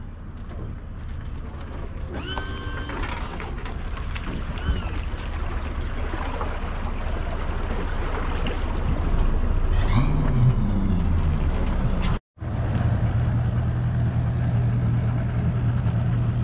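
Bass boat outboard motor running, growing louder as the boat pulls past, with a rise and fall in engine pitch about ten seconds in. After an abrupt cut, an outboard idles with a steady drone.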